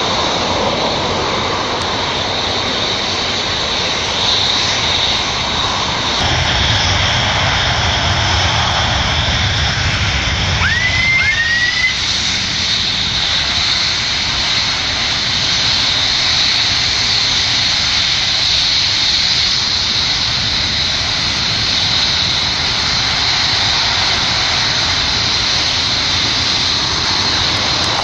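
Propeller airplane engine running at full power for a takeoff roll, with a steady high whine underneath; a deeper rumble swells for several seconds about a quarter of the way in. Two short rising chirps are heard about eleven seconds in.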